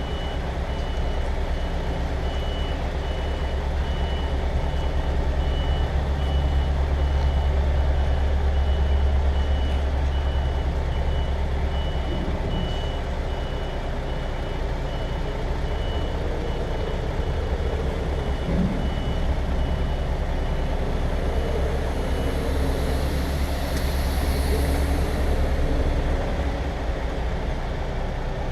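A lorry's diesel engine runs low while its reversing alarm beeps steadily. The beeping stops about three quarters of the way through, and a short hiss follows.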